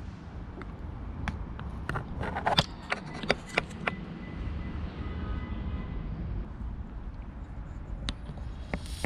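Small two-probe electric arc lighter switched on with its probes buried in a pipe bowl: a run of sharp clicks and crackles, then a faint steady high tone for a few seconds. A few more clicks come near the end.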